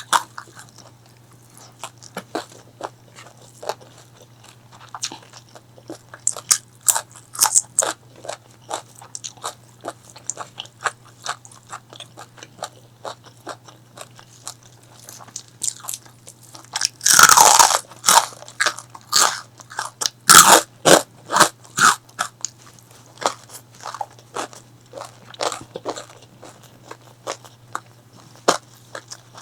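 Close-miked eating: crisp crunching bites and chewing of crunchy food, in irregular bursts, loudest in two heavy crunches about 17 and 20 seconds in.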